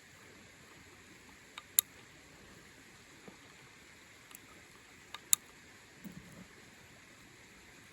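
Sharp metallic clicks as a Heritage Rough Rider .22 revolver's cylinder is loaded with rounds, in two quick pairs a few seconds apart, with a few fainter ticks over a steady faint hiss.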